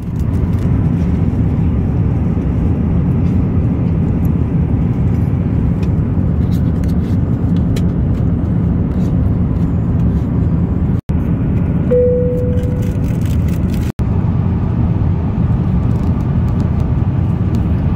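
Steady, low-pitched cabin noise of an Airbus A350-900 in cruise flight, the hush of airflow and engines. A brief single tone sounds about twelve seconds in.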